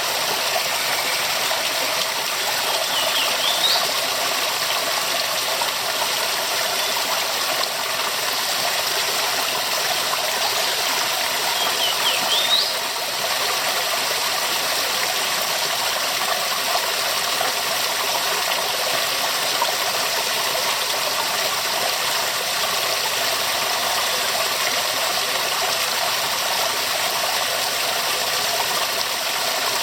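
Waterfall: a steady rush of falling water. Two brief high rising chirps cut through it, a few seconds in and again about 12 seconds in.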